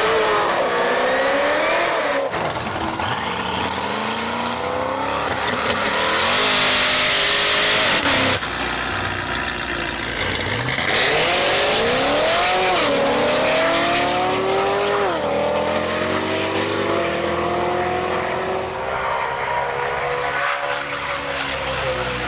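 High-powered cars accelerating hard from a standing start, each engine's pitch climbing through a gear and then dropping sharply at the upshift, several times over. There is a loud rushing noise about six to eight seconds in, and the sound changes abruptly a moment later.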